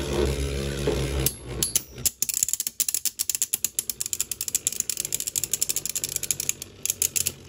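Two Dynamite Battle Beyblade tops whirring in a plastic stadium, then from about a second in locked together at the centre and grinding against each other in a fast, even run of clicks.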